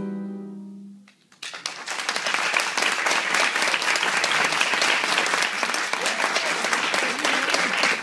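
A tango ensemble's last held chord (piano, accordion and saxophone) fades out about a second in. After a brief silence the audience breaks into steady applause.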